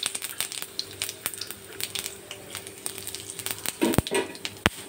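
Whole cumin seeds and dried red chillies spluttering in hot oil in a kadai, giving scattered sharp pops and crackles: the tempering stage of a curry, the oil hot enough to make the seeds pop.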